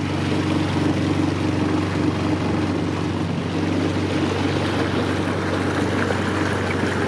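Outboard motor pushing a small boat along at a steady speed: an even engine note over the rush of water along the hull and wake.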